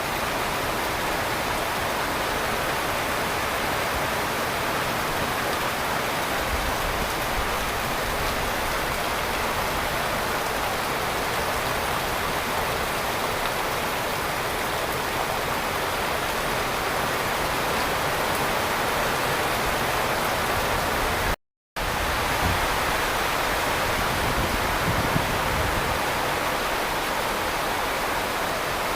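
Heavy rain falling in a steady, even hiss, broken once by a split second of silence about three quarters of the way through.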